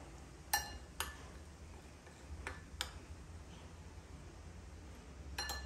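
A steel spoon clinking against a glass mixing bowl while stirring dry flour: a few sharp, separate clinks, then a quick cluster of ringing clinks near the end.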